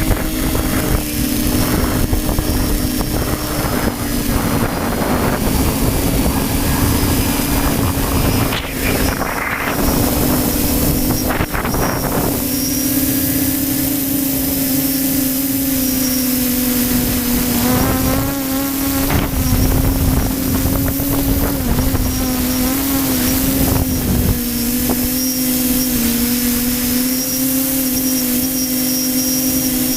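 A model aircraft in flight: its motor gives a steady drone that wavers slightly in pitch. Gusty wind rumbles on the microphone, heavier in the first dozen seconds.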